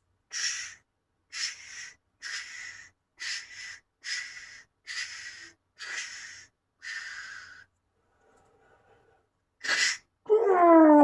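A cartoon sound effect of breathy, hissing huffs, repeated about once a second eight times, then stopping. After a pause comes one sharper hiss, and a falling cry begins right at the end.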